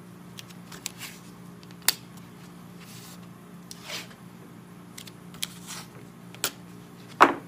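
Blue painter's tape being pulled off the roll in short rips and pressed down onto wood, with a few sharp taps, the loudest near the end. A low steady hum runs underneath.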